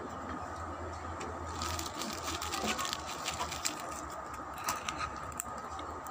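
Crisp chicharon (fried pork rinds) being crunched while eating: irregular crackles, coming thicker from about two seconds in.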